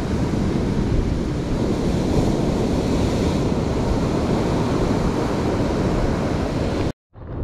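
Surf breaking and washing up the beach, with wind buffeting the microphone. The sound is steady until it cuts off suddenly near the end.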